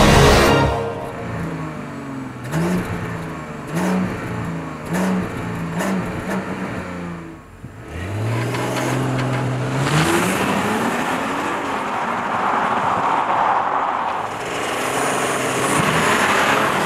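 The 3.0 turbo V6 of a 2021 Audi A8 L 60 TFSIe hybrid revved in four short throttle blips. Then comes one longer rising rev, followed by several seconds of steady engine noise with a rushing hiss.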